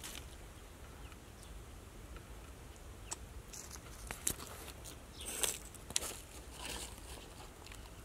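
Faint scattered crackles and clicks of footsteps on dry leaves and parched ground, a little busier a few seconds in, over a low steady rumble.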